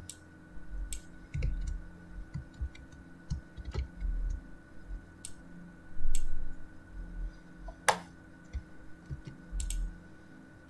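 Irregular clicks and taps at a computer desk, mixed with dull low thumps, the loudest about six seconds in, over a faint steady electrical hum.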